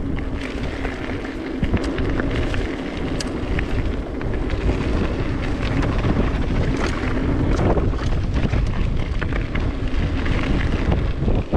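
Wind rumbling over the GoPro's microphone as a mountain bike rides a dirt singletrack, with tyre noise and scattered short clicks and rattles from the bike over the rough trail.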